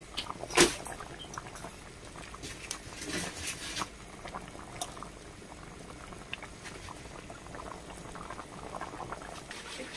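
Pot of rice and peas at a rolling boil in its cooking water, bubbling and popping irregularly. There is a sharper pop about half a second in.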